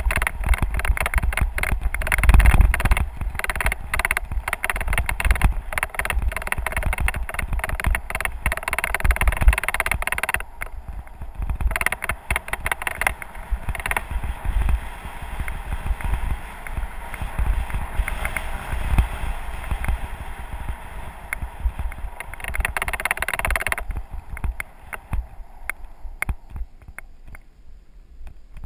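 Bicycle rolling fast down a gravel forest road: tyres crunching and the bike rattling over loose stones, with wind buffeting the mic. It gets much quieter near the end as the surface turns to smooth concrete.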